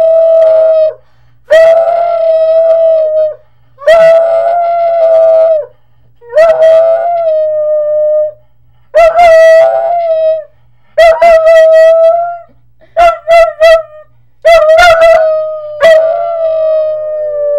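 A puggle and a woman howling together: a run of long held howls of about two seconds each with short gaps, broken into several short howls partway through. Near the end two howls slide down in pitch side by side.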